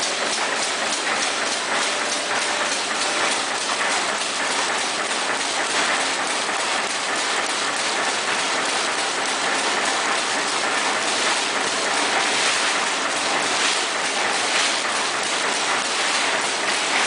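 PLASTMAQ CS800 automatic plastic-bag cutting and sealing machine running, with a steady, fast, regular clatter over a continuous mechanical noise.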